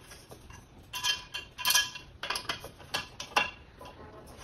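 Small metal bolts and screws clinking as they are handled and sorted. There are several sharp clinks, each with a short bright ring.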